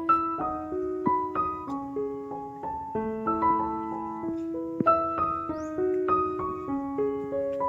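Background piano music: a slow melody of separate struck notes over held lower notes.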